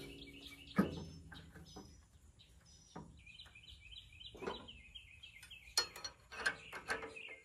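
Metal tool clinks and knocks against a Farmall 130 tractor's engine and belt pulley bracket as the new belts are being tightened, the loudest a ringing clank about a second in and a few more clicks near the end. In the middle a small bird sings a quick run of repeated high chirps for about two seconds.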